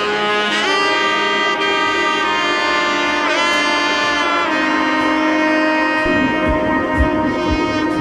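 Instrumental background music: a sustained lead melody of long held notes with sliding pitch bends. A low drum beat comes in about six seconds in.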